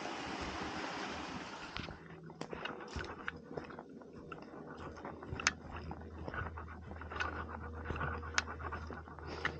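Footsteps crunching through dry fallen leaves on a forest floor, irregular steps with small snaps of leaves and twigs. For about the first two seconds a steady rushing noise plays, then stops abruptly.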